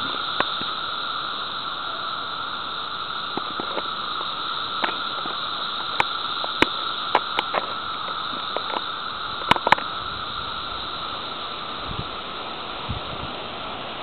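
A steady, unbroken chorus of seventeen-year periodical cicadas, with a scattered handful of short sharp clicks.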